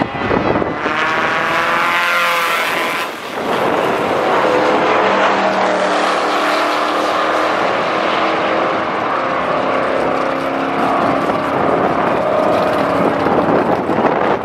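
Drag race cars launching from the start line, a red VW Beetle drag car among them. The engine note rises in pitch over the first three seconds, dips briefly, then holds steady at full throttle as the cars run down the strip.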